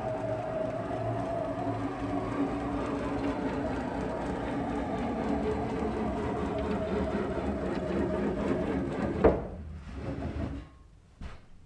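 Onefinity Woodworker X-50 CNC's X-axis gantry pushed by hand along its Y rails: a steady rolling whirr from its ball screws and bearings turning. About nine seconds in there is a sharp knock as it reaches the back, the whirr stops soon after, and a faint click follows.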